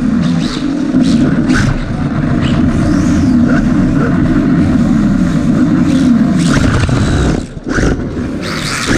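Small electric RC car drivetrain, the on-board motor and gears of a 3D-printed OpenRC F1 car, running hard, its whine rising and falling in pitch with speed, along with rattling and tyre noise on concrete. A few sharp knocks and a short dip in the noise about seven and a half seconds in.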